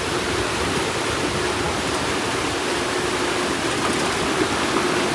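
Floodwater rushing steadily, an even unbroken hiss, with a faint steady hum underneath.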